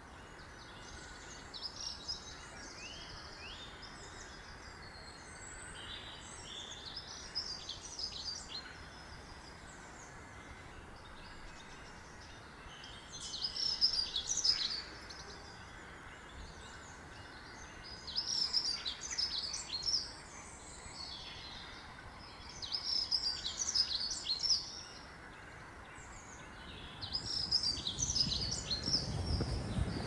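Small songbird singing outdoors: phrases of high, quick chirping song about two seconds long, repeated every four to five seconds, with fainter chirps in the first few seconds over a steady background hiss. A low rumble comes in near the end.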